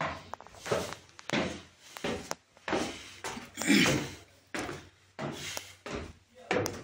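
Footsteps climbing wooden stairs, a thud about every two-thirds of a second, echoing in a narrow stone stairwell.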